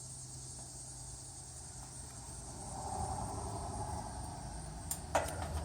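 Insects droning steadily on one high note, over a low hum. About halfway through a broader noise swells up, and a sharp click comes near the end.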